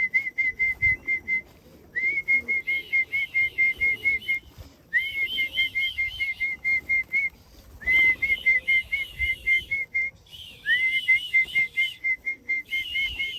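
A person whistling to call racing pigeons into the loft: runs of quick, repeated chirping whistle notes, about six runs with short pauses between, with a second, higher whistled line in most of them.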